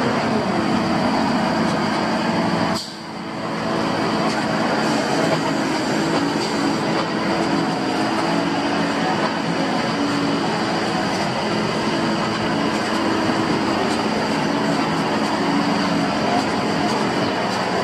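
Volvo FH16 750 log truck running with its hydraulic timber crane working: a steady engine and hydraulic drone with a thin high whine. Its pitch shifts slightly as the crane moves, and it dips briefly about three seconds in.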